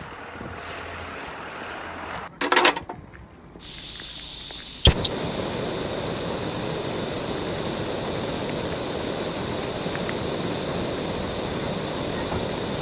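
Cut-together clips: a few seconds of faint outdoor noise with a brief loud burst about two and a half seconds in, then, after a sharp click near five seconds, the steady running noise of a commuter train heard from inside the carriage.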